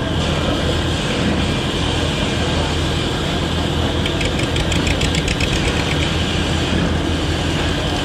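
Boat engine running steadily with a low drone. From about four to six seconds in, a rapid ticking clatter sounds over it.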